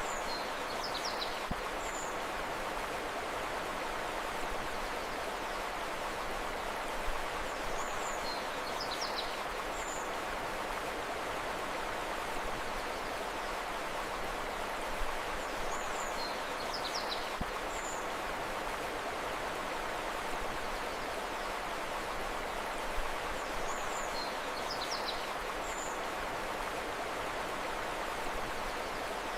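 Steady rushing of a flowing river, with a short high bird chirp phrase of a few quick notes coming back about every eight seconds, four times.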